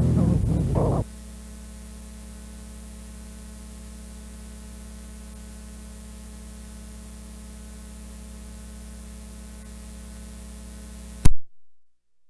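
The last notes of the song stop about a second in, leaving steady cassette tape hiss over a low, steady hum. Near the end a sharp, loud click sounds and everything cuts off to silence.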